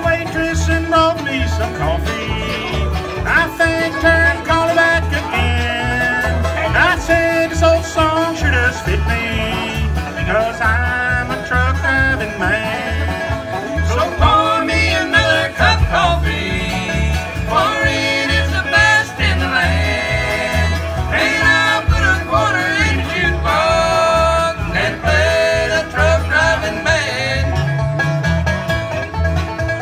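Live bluegrass band playing: five-string banjo, acoustic guitar, upright bass and fiddle, with the upright bass keeping a steady beat underneath.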